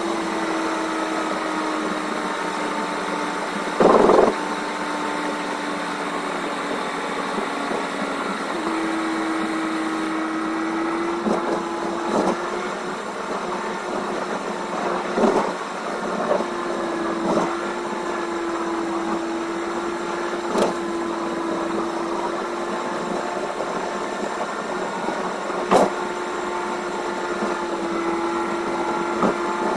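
A car driving at highway speed, heard from inside the cabin: a steady engine hum over road noise, stepping up slightly in pitch about nine seconds in. Several short knocks come at irregular moments.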